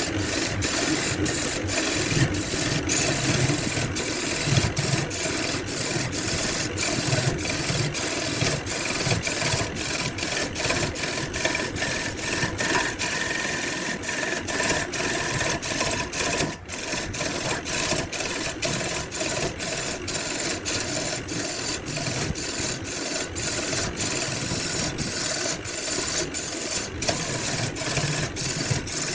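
A woodworking machine running while wood is cut or sanded, a steady rasping scrape broken by frequent brief gaps, about two or three a second.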